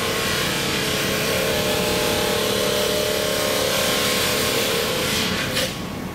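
Fox 2C swing-frame cut-off machine's abrasive wheel grinding through a heavy metal casting: a loud, steady grinding with a whine. Near the end the sound drops off sharply as the wheel comes up out of the cut.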